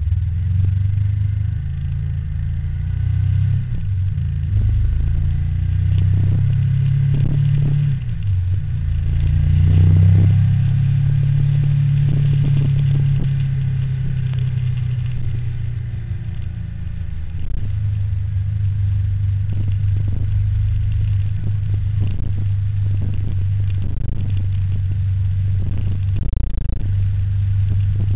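Steady low rumble of road vehicle noise. It swells about ten seconds in, then settles into an even drone from about two-thirds of the way through.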